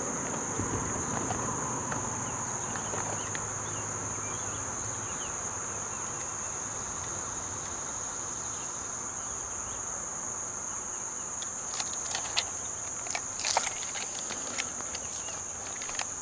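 Insects holding a steady, unbroken high-pitched buzz. From about twelve seconds in, a run of sharp clicks and rustles cuts through it; these are the loudest sounds.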